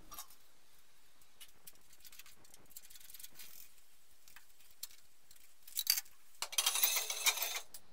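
Light metallic clinks and rattles of hand tools and a manual gearbox being worked loose from the back of an engine. It is faint at first, with a busier stretch of clinking and rattling from about six seconds in.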